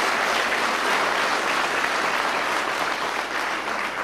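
An audience applauding: dense, steady clapping from many hands, which begins to thin out near the end.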